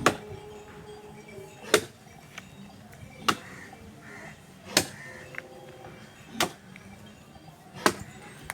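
Axe chopping into a dead tree trunk, six blows at a steady pace of about one every one and a half seconds.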